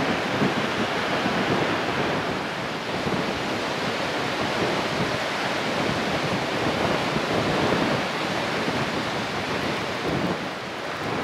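Strong, unceasing wind blowing against the microphone: a continuous rushing noise that flutters slightly in strength.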